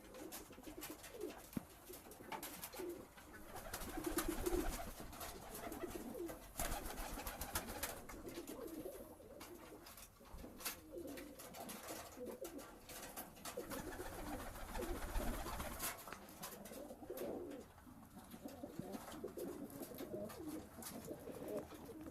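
Domestic pigeons cooing again and again in a loft, mixed with scattered light clicks and rustles.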